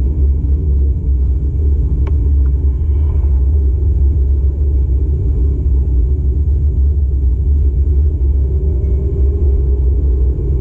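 Steady low rumble of a car driving, engine and road noise heard from inside the cabin, with a single small click about two seconds in.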